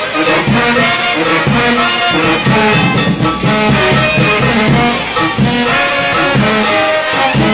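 Nicaraguan chichero brass band playing a son: trumpets and trombones carry the tune over a sousaphone bass line, with timbales, snare and bass drum keeping a steady beat.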